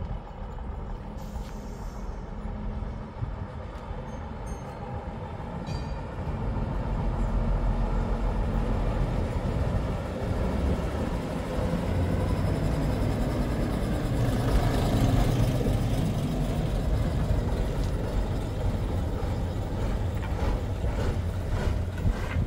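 A vehicle's low rumble that grows louder about a third of the way in, with a rush of hiss around the middle and a run of sharp clicks near the end.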